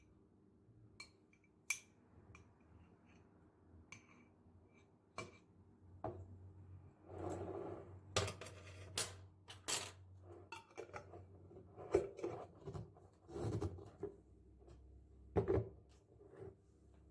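Hard household objects being handled: a string of sharp clicks, clinks and knocks, irregularly spaced, with some rustling in between.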